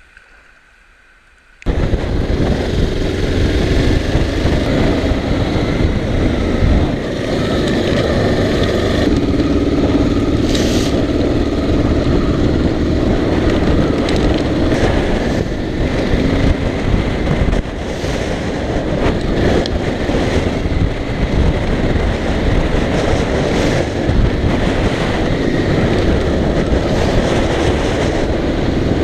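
A motorcycle engine running steadily while riding a rough stony track, with heavy wind noise on the microphone. It starts abruptly a second and a half in, after a short, faint quiet stretch.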